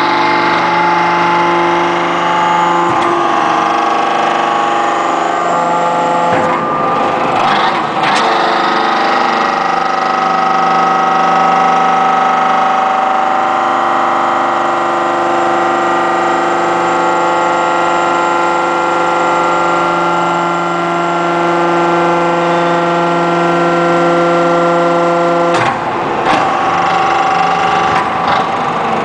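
Y81-130 hydraulic metal baling press running: a steady hum of several tones from its hydraulic power unit, with the hum changing a few seconds in and again near the end. Bursts of harsher rushing noise come about 7 seconds in and near the end, as the control levers are worked.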